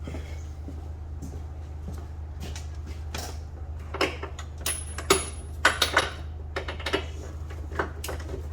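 Irregular metallic clicks and clanks of hand tools being handled on car parts, thickest and loudest around the middle, over a steady low hum.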